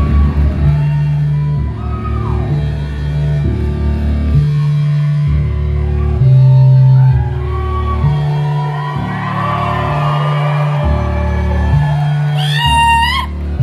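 Loud live music through a venue PA: a heavy bass line of held notes that changes about every second, with wavering higher tones over it. Near the end a short high sound rises and falls in steps.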